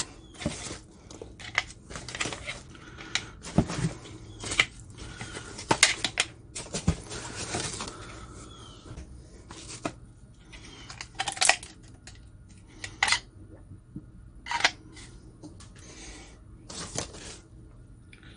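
Plastic-sheathed Mora Basic 511 knives clacking against one another and rustling among foam packing peanuts as they are handled in a cardboard box: irregular sharp clicks and knocks with brief rustles in between.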